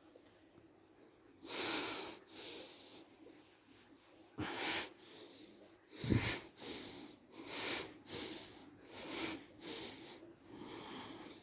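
A Shiba Inu breathing out hard through its nose in about eight short, breathy bursts, close by. The loudest comes about six seconds in and carries a low thump.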